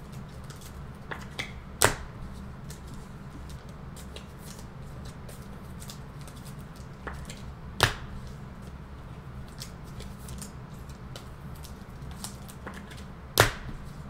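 Trading cards being handled and sorted: soft rustling and light ticks, with three sharp clicks, about two seconds in, near eight seconds and near the end. A low steady hum runs underneath.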